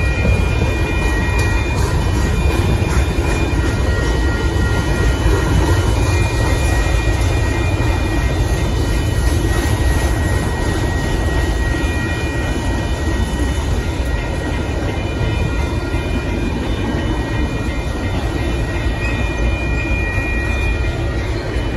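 Union Pacific covered hopper cars of a grain train rolling past at close range: a steady rumble of steel wheels on the rails. A thin, high wheel squeal comes and goes a few times.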